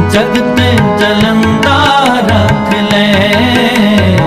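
Instrumental passage of a Sikh devotional hymn (shabad): tabla keeping a steady rhythmic pattern under a sustained melody, with a short gliding melodic phrase in the middle.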